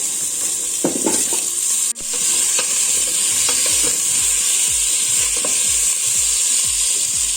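Carrot and green radish pieces sizzling in hot oil in a wok, stirred with regular strokes about three a second. The sizzle drops out briefly about two seconds in.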